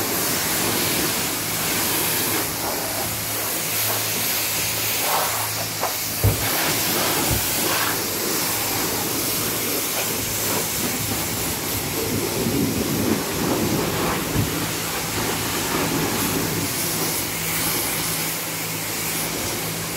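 High-pressure wand of a self-service car wash spraying water onto a car's body: a steady hiss of spray over a faint, steady low hum. A few short knocks cut through it.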